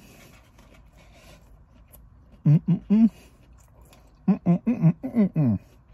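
A man chewing a mouthful of Chicken Big Mac, with faint rustling of the paper box. He then makes short hums with his mouth full, each falling in pitch: three about two and a half seconds in, and a quick string of about six from about four seconds in.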